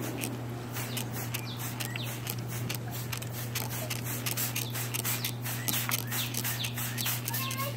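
Fine water spray spattering on a blue-and-gold macaw's feathers and perch, a dense, irregular crackle of droplets, with a few short chirps from the macaw and a steady low hum underneath.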